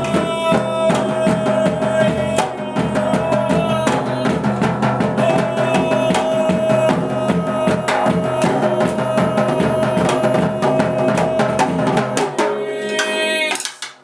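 Music with a fast drum-kit beat over a long held note. The bass drops out about twelve seconds in, and the music stops near the end.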